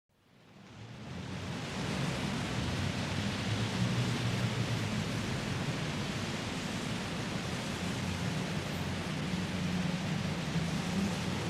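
Alarm sound playing: a steady rushing noise that fades in from silence over about two seconds and then holds level, with a low, uneven hum beneath it.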